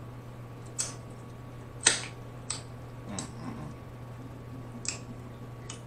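Wet mouth sounds of someone eating: lip smacks and finger-licking, heard as about half a dozen short, sharp, spaced-out clicks, the loudest a little under two seconds in.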